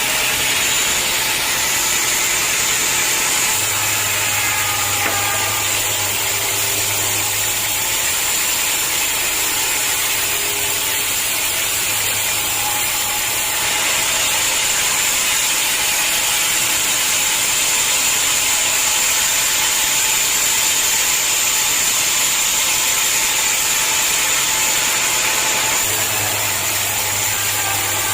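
Sawmill machinery running while sawing hard acacia logs: a steady mechanical noise with a high whine throughout, and a low hum that comes and goes.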